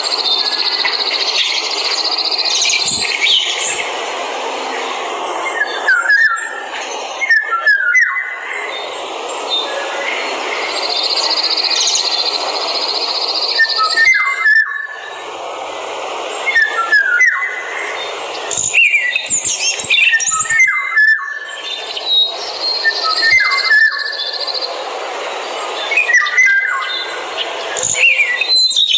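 Forest birds calling with many short, quick sweeping chirps over a steady hiss of forest background. A high, even buzzing tone comes in three times, each time for two to three seconds.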